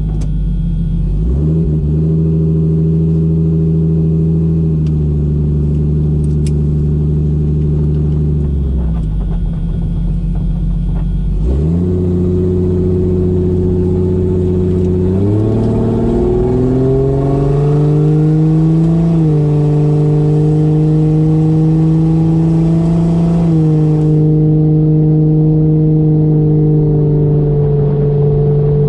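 Turbocharged Toyota 1JZ inline-six in a Fox-body Mustang, heard from inside the car while driving at part throttle: the engine note climbs and holds, eases off about eight seconds in, then climbs again from about twelve seconds, with a couple of sudden small drops in pitch later on.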